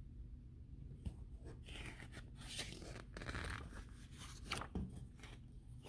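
Pages of a hardcover picture book being turned by hand: soft paper rustling and crinkling with a few light taps and clicks.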